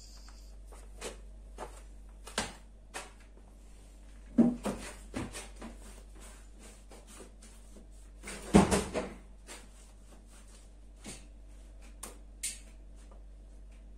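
Scattered light knocks and clicks of handling and setting up, with two louder bursts of clattering knocks about four and a half and eight and a half seconds in, over a steady low hum.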